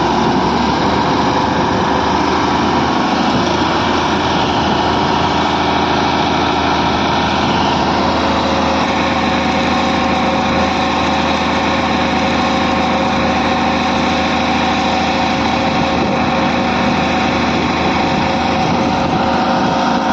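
A 120 hp truck diesel engine running steadily under load, driving a vertical turbine borewell pump through a PTO shaft.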